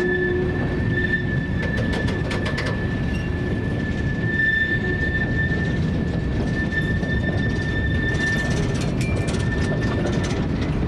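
Freight train of coal gondola cars rolling past on a curve: a steady rumble of steel wheels on rail with a high, steady wheel squeal that fades out near the end, and a few clicks over the rail joints.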